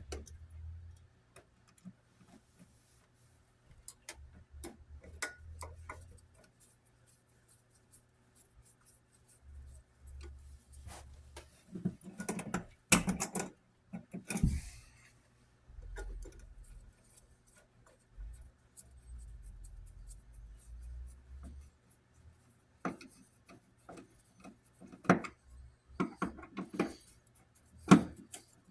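Scattered small clicks, taps and rubbing from hands working a wall receptacle and its wires back into an electrical box, with a few sharper knocks about halfway and near the end.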